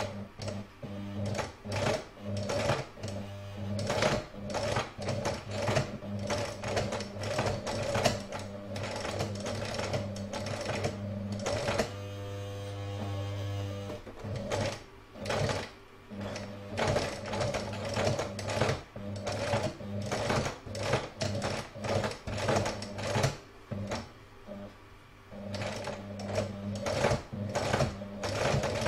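Domestic electric sewing machine stitching slowly in stop-start runs through thick layers of fabric and felt: rapid needle strokes over the steady hum of its motor.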